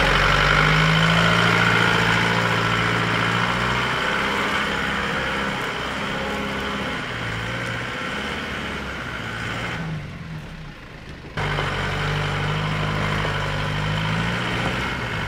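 Holden Rodeo TF ute's engine running under load as it climbs a rutted dirt hill, the engine note rising and falling as the throttle changes. About ten seconds in the sound drops away for a moment, then comes back just as loud.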